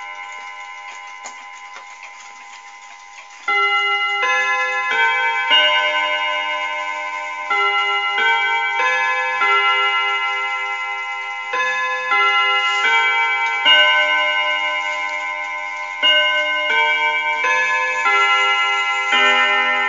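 Mechanical chiming mantel clock ticking, then playing its quarter-chime melody from about three seconds in, in four-note phrases, each note ringing on. Four phrases follow one another, the full sequence that comes before the hour strike, and a new run of notes starts near the end.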